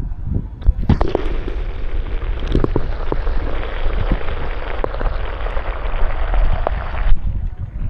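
Water sloshing against a camera at the surface, then about a second in the camera goes under: a steady underwater hiss with scattered crackles and pops. It cuts off sharply near the end as the camera comes back up into low sloshing.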